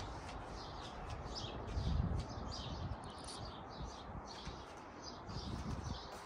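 Small birds chirping repeatedly, with a low rumble swelling briefly about two seconds in.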